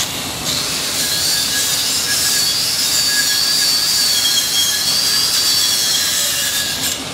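Electric angle grinder grinding down a weld bead on rectangular steel tube: a high whine that wavers in pitch as the disc bites, over a steady grinding hiss. It starts about half a second in and stops abruptly near the end.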